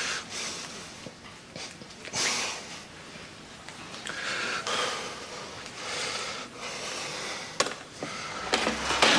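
A man's wheezing breaths, short and hissy, coming irregularly every second or two. Near the end a click and an electric desk fan starting up with a low hum.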